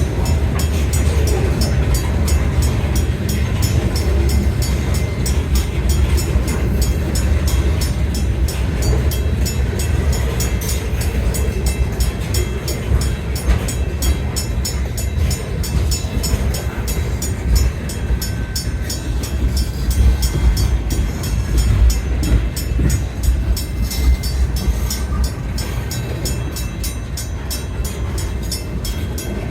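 CN freight train rolling past with a steady low rumble.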